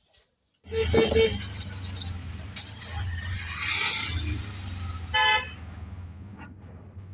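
Auto-rickshaw (keke) engine running steadily, heard from inside the passenger cabin, with three quick horn toots about a second in and a louder, short horn blast about five seconds in.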